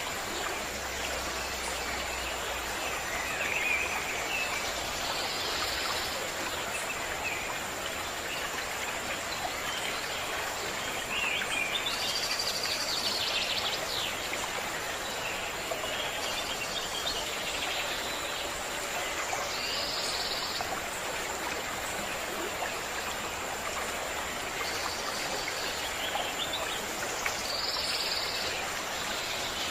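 Steady rush of a stream, with several short bird calls scattered over it.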